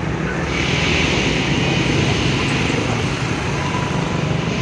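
Street traffic: a motor vehicle engine runs with a steady low rumble, and a higher hiss comes in about half a second in.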